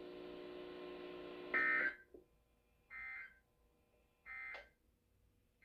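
Emergency Alert System end-of-message data: three short bursts of the digital SAME tones, each a brief buzzy screech, about 1.3 s apart. They come after a faint steady hum from the broadcast audio.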